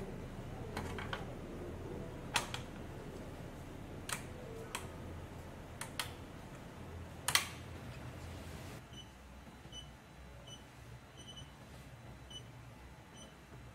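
Sharp clicks and snaps of a cap frame being fitted and clamped onto a Wonyo embroidery machine, eight or so in the first eight seconds, the loudest about seven seconds in. Then come several short, high beeps from the machine's touchscreen control panel as its keys are pressed.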